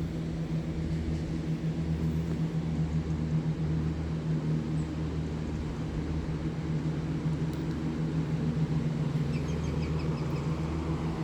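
Lawn mower engine running steadily as a low hum. A bird gives a short, quick run of chirps about nine seconds in.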